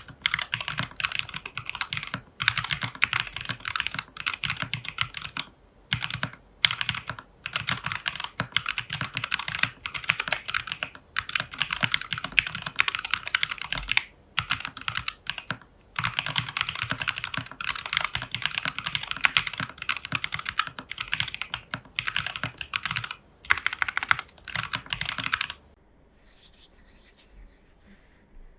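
Rapid typing on a plastic-case, plateless TU40 mechanical keyboard with foam and tape mod, Jwick Nylon switches and XMI Cyrillic keycaps: dense runs of key clacks broken by short pauses, stopping about two seconds before the end.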